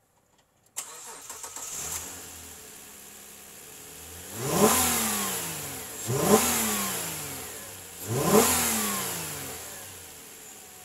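2004 Nissan Maxima's 3.5-litre V6 idling, then revved three times about two seconds apart, each rev climbing quickly and sinking slowly back to idle.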